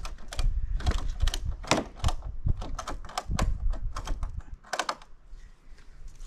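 Irregular sharp clicks and clacks from strapping a stack of freshly sawn lumber, roughly two or three a second, easing off after about four and a half seconds.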